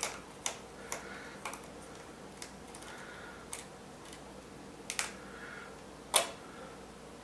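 Light, irregular clicks and taps of a small screwdriver and plastic parts as the last screw holding the DJI Phantom 2's upper shell is undone, with the loudest click near the end.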